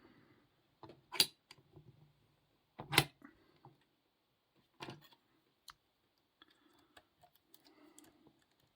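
Lock-picking tools and a padlock handled and clicking together: a few sharp metallic clicks with faint rustling between them, the two loudest about a second and three seconds in.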